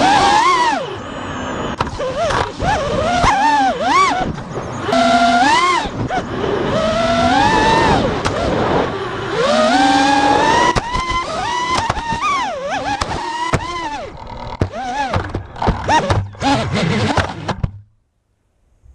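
FPV quadcopter's brushless motors whining, their pitch swinging up and down in quick throttle punches, with a run of sharp knocks later on. The sound cuts off suddenly near the end.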